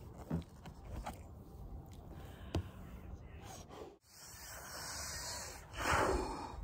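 A person blowing air into a large balloon by mouth: a steady hiss, then one long, loud blow about six seconds in. Before that come faint handling sounds with one sharp click.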